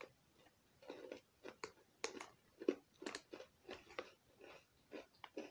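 A person chewing a crunchy cocoa biscuit shaped like an animal (Zwierzaki), giving a string of short crunches about two or three a second from about a second in.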